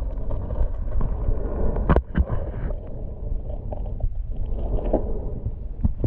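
Muffled underwater noise heard from a camera held below the lake surface: a steady low rumble of moving water, with a few sharp clicks and knocks about two seconds in and again near the end.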